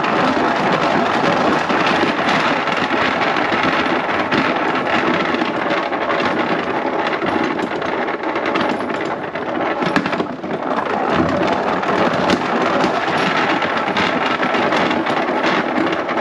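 Commercial salad spinner spinning washed basil and mint leaves, flinging the water off them: a loud, steady whirring rattle that eases briefly about ten seconds in.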